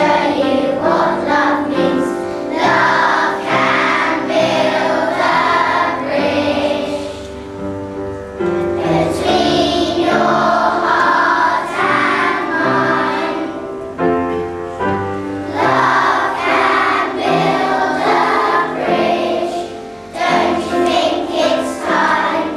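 A choir of young children singing a song together, with held notes over a steady low accompaniment.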